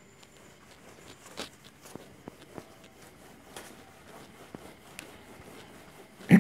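Whiteboard duster rubbing across a whiteboard, erasing writing: faint, irregular scrubbing strokes. A sudden loud sound cuts in right at the end.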